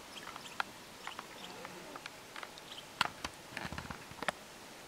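Chipmunk moving about among dry roots and twigs: scattered small clicks and rustles, with a denser run of sharper clicks about three seconds in.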